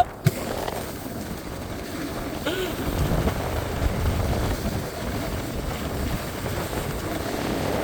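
Steady rushing wind noise buffeting the microphone, as from riding downhill on a snowboard.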